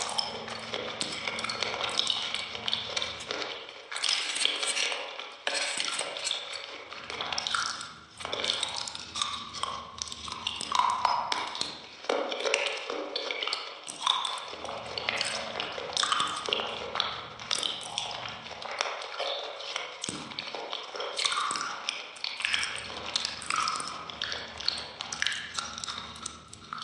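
Close-miked eating of soft iced cake: bites, chewing and wet mouth sounds, with many sharp little clicks throughout.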